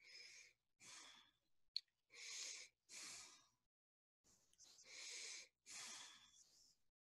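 A person breathing faintly at a computer microphone: short breaths in and out, in three pairs with silent gaps between. There is one sharp click about two seconds in.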